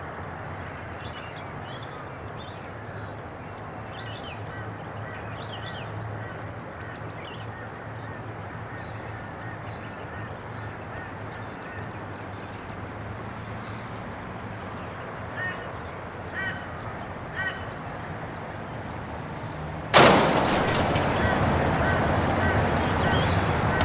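Scattered bird calls over a steady background hiss. Near the end a sudden loud, rasping, continuous noise cuts in as a fish takes the jig: a spinning reel's drag giving line.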